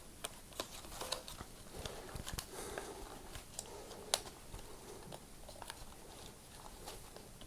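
Light handling noises from fitting a tight rubber blade belt onto the pulleys of a Flymo UltraGlide lawnmower's motor housing: scattered small clicks and rubbing, with one sharper click about four seconds in.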